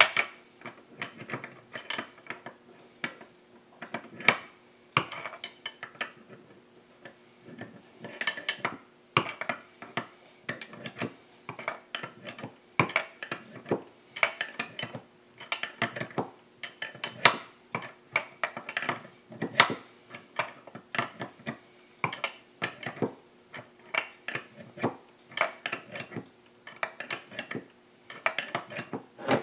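Steel hand wrenches clicking and clinking in short irregular runs as they turn a case-fitting puller, drawing a Husqvarna 372 chainsaw's crankcase halves together onto the crankshaft bearing until the tool bottoms.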